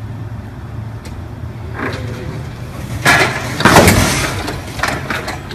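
Forklift engine running steadily, then about three seconds in a loud crash followed half a second later by a louder bang and clatter as the pickup truck it was holding up drops back onto its wheels.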